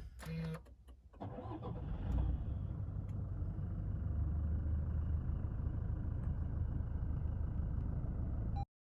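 A Toyota Hilux GR Sport pickup's diesel engine starting about a second in, after a short tone and a few clicks, then idling with a steady low rumble. The sound cuts off abruptly near the end.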